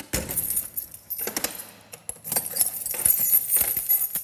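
A bunch of metal keys jangling, with sharp clicks as a key works in a steel cell door lock.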